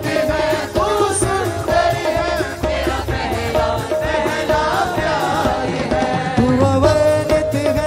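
A women's choir singing a Christian worship song together, backed by a live band with keyboard and drums.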